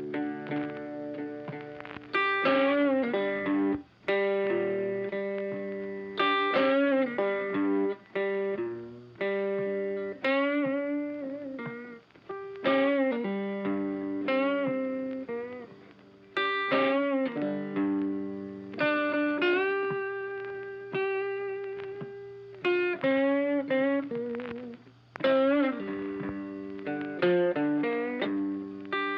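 Background music led by a plucked guitar with effects and slight distortion, notes bending.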